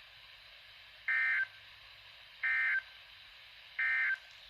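NOAA Weather Radio SAME end-of-message data signal heard through an HH54VP handheld weather radio's speaker: three short, buzzy digital tone bursts about 1.3 s apart over faint radio hiss, marking the end of the Required Weekly Test transmission.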